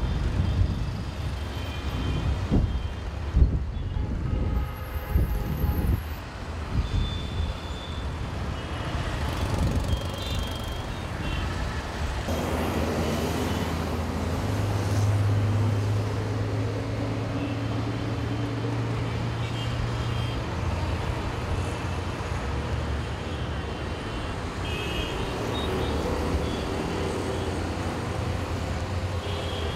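Busy city road traffic: the engines of buses, cars, auto-rickshaws and motorbikes running together, with a steady low engine drone in the middle and short high-pitched beeps here and there.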